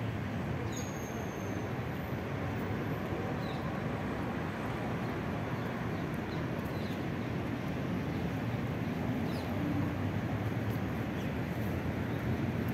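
Steady outdoor hum of road traffic, with a few faint, short, high chirps scattered through it.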